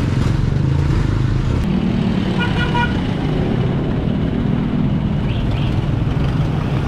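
Street traffic: a steady engine rumble from passing vehicles, with a brief horn toot about two and a half seconds in.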